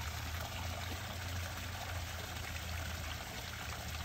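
Water pouring and trickling steadily into a garden pond from a wooden paddle wheel water feature, with a low steady hum underneath.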